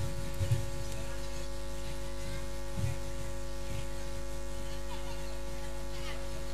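Steady electrical hum made of several constant tones, with a couple of faint low thumps.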